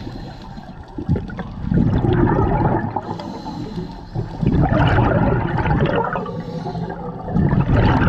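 A scuba diver's exhaled breath bubbling out of the regulator underwater, in three bursts about three seconds apart, each lasting a second or so.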